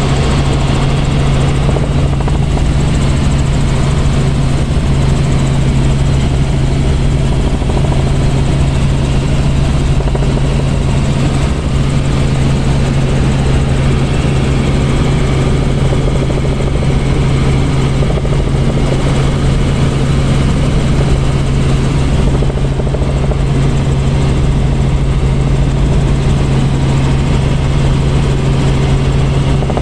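Cabin noise of a Robinson R44 helicopter in cruise flight, heard from inside the cabin: a loud, steady drone of engine and rotors with a strong low hum, unchanging throughout.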